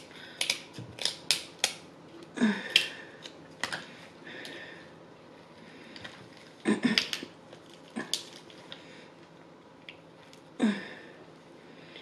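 Kitchen shears snipping through crab leg shell: a quick run of sharp snips and clicks in the first two seconds, then a few louder cracking crunches as the shell splits, one near the end.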